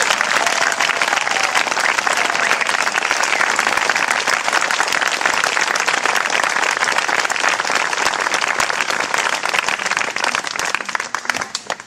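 Small audience applauding: steady clapping from a couple of dozen people that fades away near the end.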